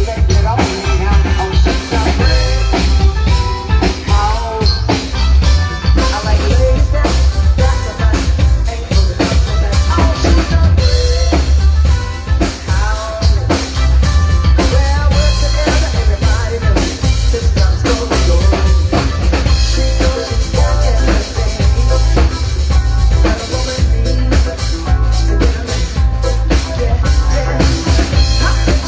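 A band playing live, with a full drum kit (kick, snare and rimshots) over a heavy, steady bass and shifting melodic parts.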